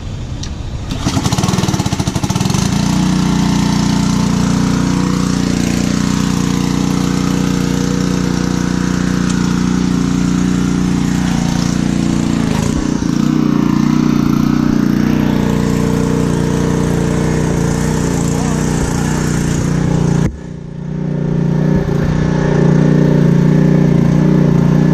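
Gas pressure washer's small engine running steadily, picking up about a second in. It dips briefly about twenty seconds in, then runs on a little louder.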